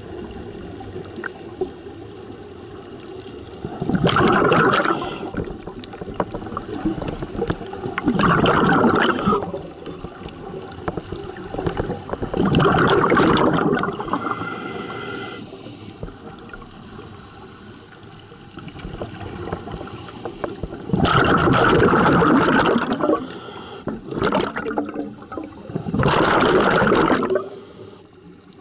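Scuba diver exhaling through a regulator underwater: six loud bursts of rushing bubbles, each one to two seconds long. They come about every four seconds, pause for several seconds midway, then come three in quick succession near the end.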